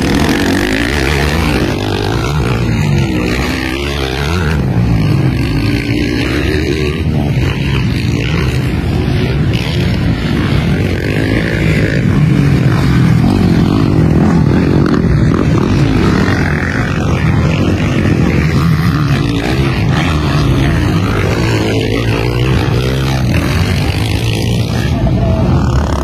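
Motocross dirt bike engines racing on the track, several engines revving at once with their pitch rising and falling again and again.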